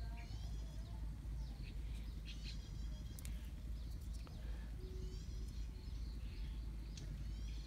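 Small birds chirping in quick trilled bursts, about four times, over a steady low rumble.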